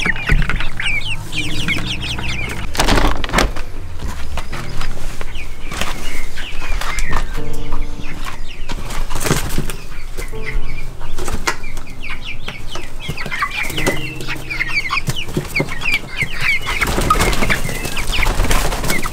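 A flock of young chickens cheeping and clucking, many short high calls overlapping throughout.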